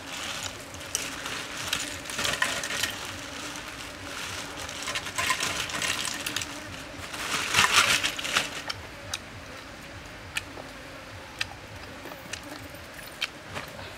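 A person eating grilled chicken with their fingers: chewing, lip-smacking and tearing meat off the bone in a series of irregular bursts, the loudest about eight seconds in. After that it goes quieter, with a few scattered sharp clicks.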